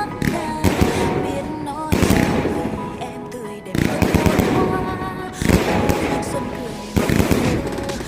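Low-altitude fireworks going off in rapid clusters of sharp bangs and crackles, over music with a sung melody.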